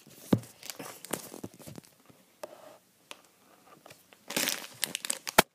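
Clear plastic bag of Lego pieces crinkling as it is handled, with the loose bricks clicking inside; the crinkling gets louder about four and a half seconds in, and a single sharp click comes just before the end.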